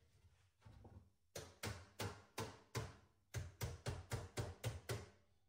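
Hammer tapping along the corner seam of a sheet-metal duct fitting, closing the seam so the sides lock together. Faint handling of the metal pieces, then from about a second and a half in a steady run of sharp hammer strikes, about three a second.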